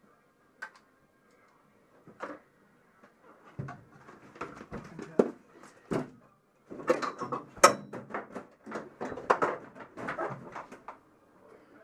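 Irregular knocks, clunks and rattles inside a stripped race car's cockpit as the driver moves about and climbs out of the seat, getting busier from about three seconds in; the engine is not running.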